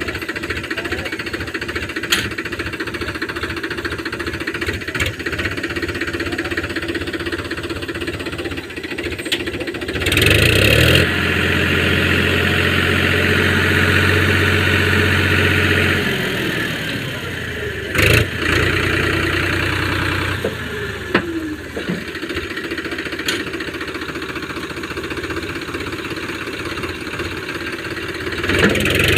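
Powertrac tractor's diesel engine running with a steady low chug, then revving up louder about a third of the way in and holding there for several seconds before easing back. A single sharp knock follows soon after.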